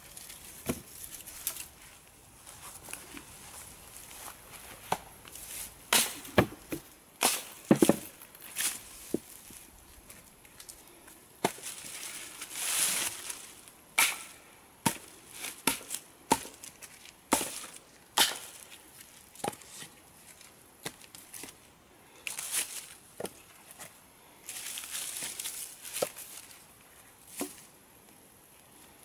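Dead wood logs and branches knocking and clattering against each other at irregular intervals as they are handled and laid onto a pile, the loudest knocks about six to eight seconds in. Between the knocks come a few longer rustling stretches of wood brushing through dry grass and leaves.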